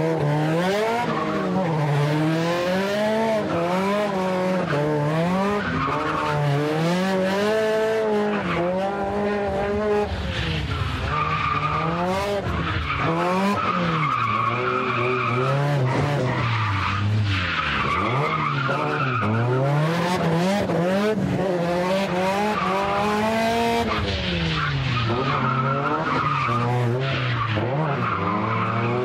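Cars drifting: engine revving that rises and falls again and again with the throttle through the corners, and tyres squealing in long stretches while they slide sideways.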